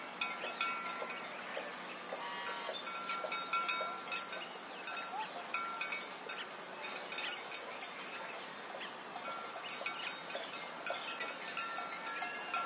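Many metal livestock bells jingling and clanking irregularly as the animals move, in a busy, overlapping ringing.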